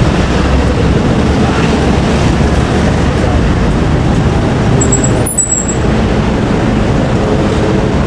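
City street traffic: cars, a bus and a Toden Arakawa Line streetcar passing, heard as a loud steady rumble. There is a short high squeal about five seconds in.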